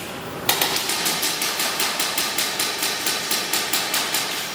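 Airsoft gun firing a rapid, even string of shots, about six a second, starting about half a second in.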